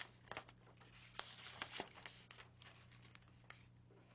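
Faint rustling and light clicks of paper being handled, a folded sheet turned and opened, over a low steady electrical hum.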